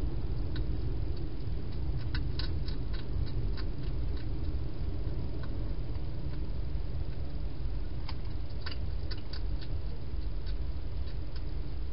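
Wild hedgehog eating from a bowl inside a plastic feeding box: small sharp crunches and clicks of food being chewed, in clusters about two seconds in and again around eight to nine seconds. A steady low rumble runs underneath.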